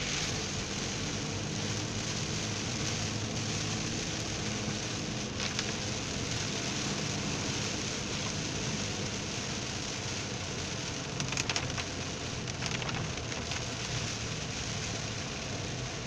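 Heavy rain falling on a moving car's windshield and roof, heard from inside the cabin as a steady hiss over the low hum of the car's engine. A few brief crackles stand out about five and eleven seconds in, the louder around eleven seconds.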